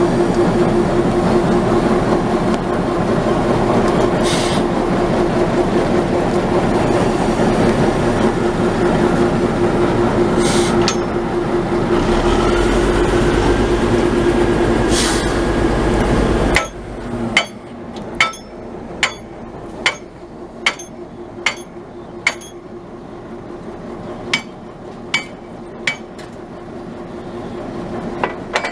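Narrow-gauge diesel locomotive idling close by with a steady hum. About two-thirds through, the sound suddenly drops much quieter with the engine tone still there, and a run of about a dozen sharp knocks follows, evenly spaced under a second apart.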